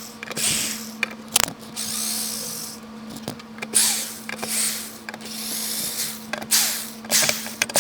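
Hand tool scraping and creaking against an MDF speaker box in a run of short, squeaky strokes with a few sharp clicks, over a steady low hum.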